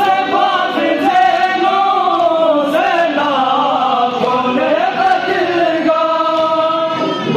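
A group of men chanting a noha, a Shia mourning lament, together in long phrases that rise and fall in pitch.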